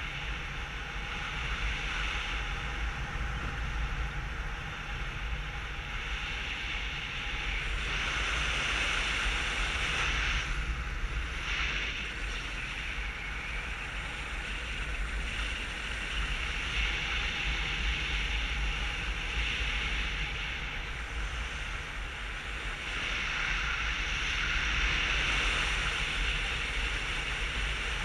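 Wind rushing over a GoPro's microphone in paragliding flight: a steady rumbling hiss that swells louder about eight seconds in and again over the last few seconds.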